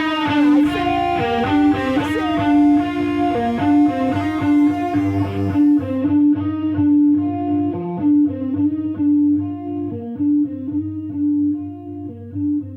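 Rock music led by electric guitar playing picked notes over a steady low tone. The sound thins out about six seconds in and starts to fade near the end.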